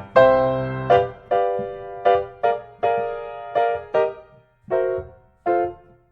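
Solo piano music: single notes and chords struck one after another, each ringing and fading away. The notes space out in the second half, with short silent gaps between them.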